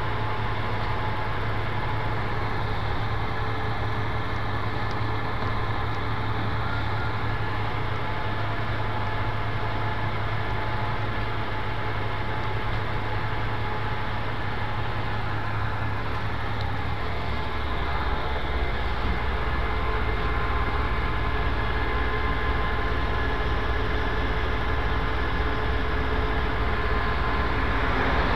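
A vehicle engine running steadily: a low hum with a few steady whining tones over it, growing a little louder about two-thirds of the way through.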